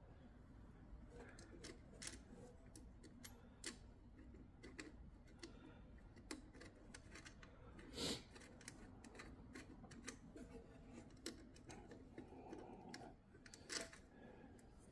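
Faint, scattered clicks and taps from wiring leads and terminal hardware being handled inside a sheet-metal generator terminal box. One sharper click comes about eight seconds in and another near the end.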